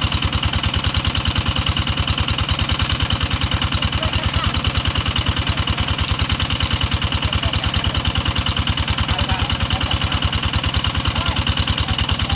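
Small engine driving a water pump, running steadily with a rapid, even chugging and a steady high whine above it, as it pumps the pond out through a large pipe.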